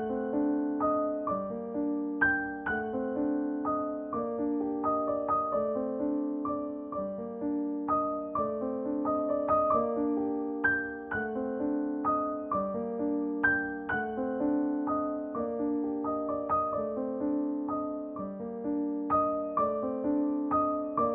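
Background piano music: gentle notes struck one after another in a slow, flowing pattern.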